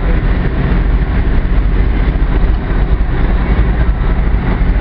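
Boat engine running steadily: a constant low drone with a noisy wash of wind and water over it.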